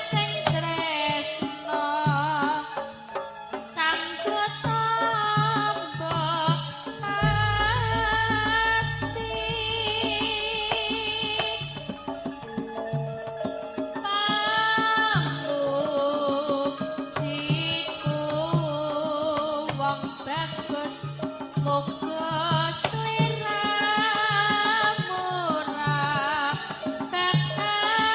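Javanese gamelan music in pelog, pathet nem: a singer with wavering vibrato over regular hand-drum strokes, with a deep gong-like stroke about seven seconds in that rings on for several seconds.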